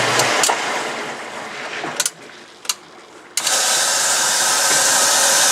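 A loud, steady whooshing from an electric appliance motor dies away over about two seconds. Two sharp clicks follow, then a second of quiet, and then the whoosh suddenly starts again at full level: the power is being cut and restored.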